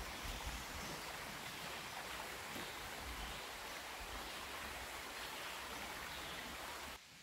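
Small rocky creek running steadily over stones in a low cascade, a constant rushing that cuts off suddenly near the end.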